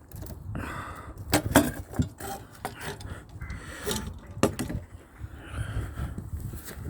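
Old pliers levering metal fixings out of a wooden scaffold board: scraping and creaking wood with several sharp cracks, the loudest about a second and a half in and again about four and a half seconds in.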